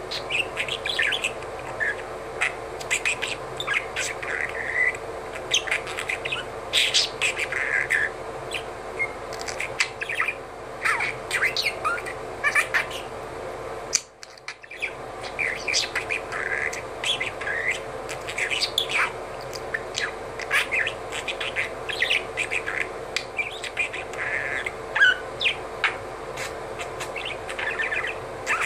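Budgerigar chattering to itself in a soft, mumbled warble: a continuous stream of quick chirps, clicks and short whistled notes. This is the quiet talking a budgie does while perched. The chatter breaks off briefly about halfway through.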